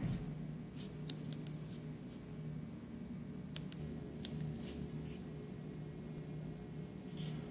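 Light, sharp clicks from a Samsung Gear S3 smartwatch being worked by hand, about a dozen at irregular spacing, over a steady low hum.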